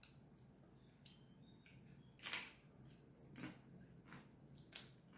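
Faint eating and food-handling sounds: three short, crisp rustles or clicks as fresh lettuce leaves are handled for a wrap. The loudest comes about two seconds in, with weaker ones later over a quiet room.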